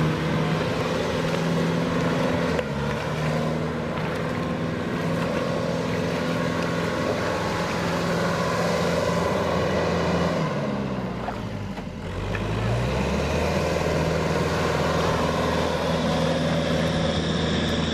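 Farm tractor engine running steadily, its pitch dropping and then climbing back up again about ten to thirteen seconds in.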